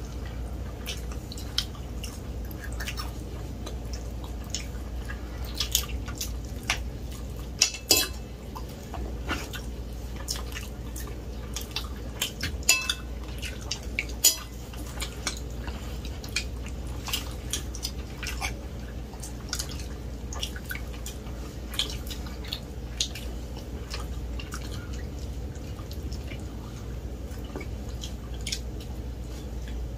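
Eating at a meal: many short, scattered clicks and taps of forks on plates along with chewing and mouth sounds, over a steady low hum. A few sharper clicks stand out about eight seconds and fourteen seconds in.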